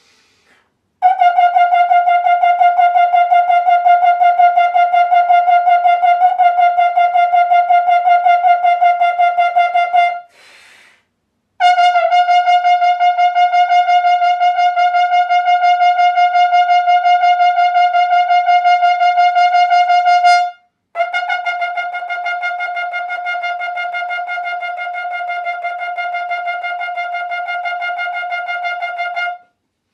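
Three trombones in turn, each playing a high F over and over, rapidly tongued on a single breath, for about nine seconds apiece with short gaps between players. The third run is softer than the first two.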